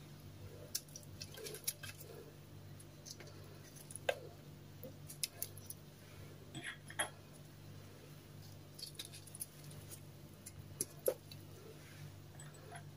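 Bouillon cubes being unwrapped and added to a pot of seasoned meat: faint, scattered small clicks and rustles, with a low steady hum underneath.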